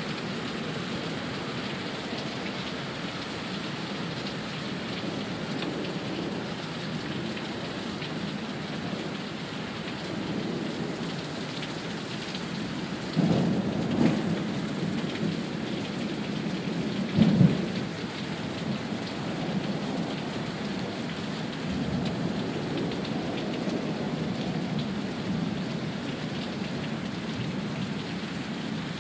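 Heavy thunderstorm downpour: rain falling hard and steadily, with two rumbles of thunder about halfway through and a fainter one a few seconds later.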